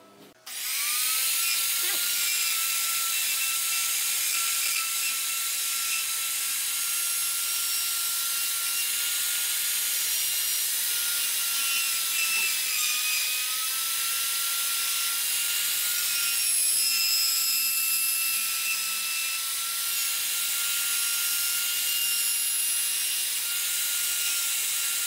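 Electric trim router spinning up about half a second in, then running at full speed with a steady high whine while it cuts the lock mortise into the edge of a hardwood door. Its pitch dips briefly around the middle as the bit takes load.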